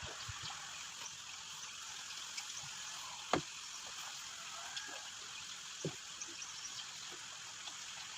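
Steady low hiss of background noise with a few soft taps, one about a third of the way in and another about three quarters of the way in.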